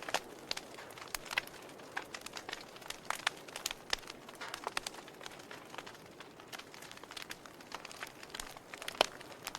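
Wood fire burning in a fireplace: a soft steady hiss with frequent irregular crackles and pops, one sharp pop standing out near the end.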